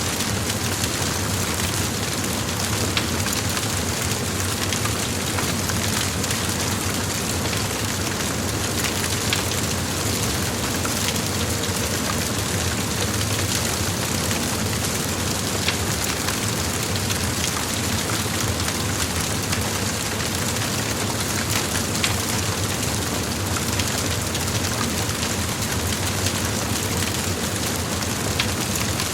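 A large fire blazing: a steady, dense noise of burning with scattered sharp crackles and pops.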